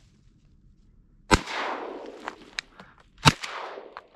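Two shotgun blasts about two seconds apart, each trailing off in a long fading echo, with a few light clicks between and after them.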